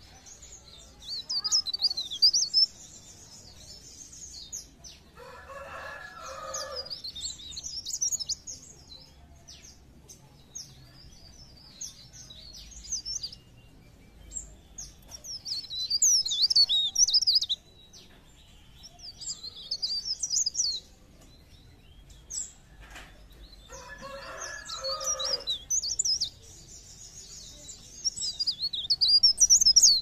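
A caged pare-pare (cikrak daun, a leaf warbler) singing in quick, high twittering bouts of a few seconds each, full of rapid up-and-down notes, with short pauses between them. Twice a lower, harsher call sounds beneath the song.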